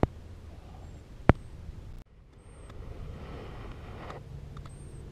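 Two sharp clicks about a second and a half apart, then a faint hiss and, from about four seconds in, a low steady hum with a few small ticks.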